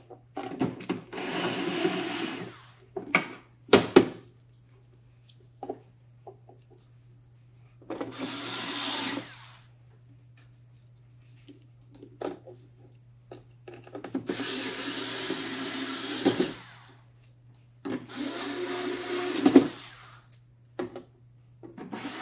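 Cordless screwdriver motor whirring in four short runs of one to two seconds each, driving screws into a machine's back panel to close it. A couple of sharp clicks come about four seconds in.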